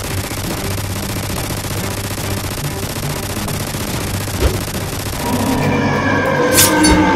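Rapid-fire gunfire sound effect: a dense, continuous rattle of shots over background music. About five and a half seconds in, the rattle gives way to music and a sharp hit.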